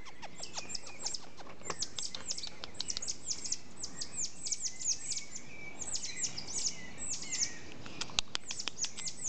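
Red-naped tamarins (Geoffroy's tamarins) calling: a rapid stream of high-pitched chirps, each sweeping steeply down in pitch and often overlapping, with a few short level whistles mixed in.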